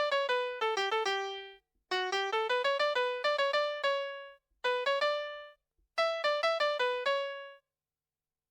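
Baby toy tablet playing a built-in melody through its small speaker in a piano-like electronic tone: four short phrases of quick notes, each ending on a held note, with brief pauses between. The tune stops about seven and a half seconds in.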